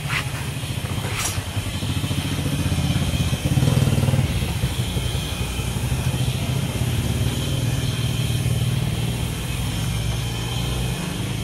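A motor running steadily with a low drone, getting louder and rising in pitch about four seconds in.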